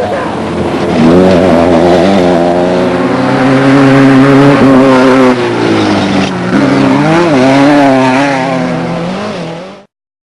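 Desert race vehicle's engine running hard, its pitch rising and falling as the revs change, until the sound cuts off suddenly near the end.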